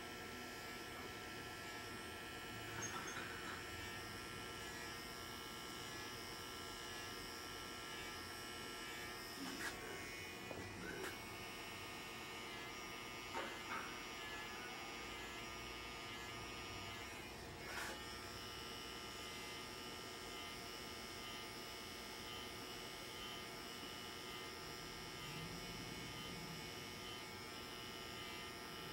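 Barber's electric hair clippers running with a steady buzz while cutting a skin taper, with a few brief light taps along the way.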